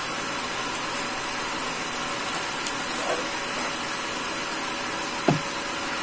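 Cardboard webcam packaging being handled: a small tick partway through, a light rustle, and a louder short scrape about five seconds in, as the inner box slides out of its sleeve. A steady hiss runs underneath throughout.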